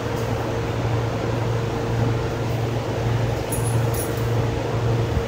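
Steady machine hum with a constant low drone, typical of barn machinery running. A few faint high ticks come about three and a half to four seconds in.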